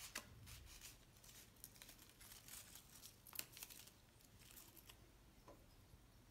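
Faint rustling, crinkling and tearing of crepe paper as it is wound round a flower stem and the end torn off, in short scratchy strokes with a sharper one about three and a half seconds in, fading after about four seconds.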